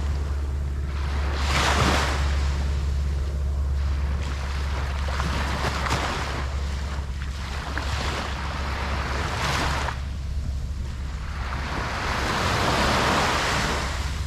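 Ocean waves breaking on a beach, surging in about four washes of surf roughly every three to four seconds, over a steady low rumble.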